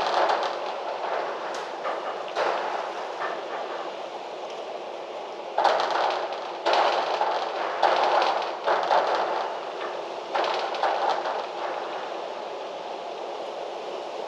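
Wind gusting through trees, rustling leaves in a steady rush that surges suddenly several times, about five and a half, seven, eight and ten and a half seconds in, then eases off.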